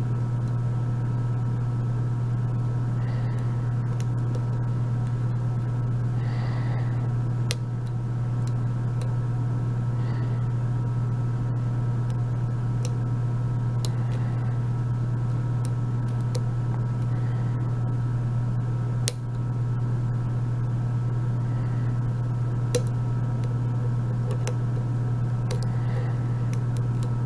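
A steady low hum runs under everything, with faint, scattered clicks of a lock pick and tension wrench working the pins of a euro profile cylinder during single-pin picking.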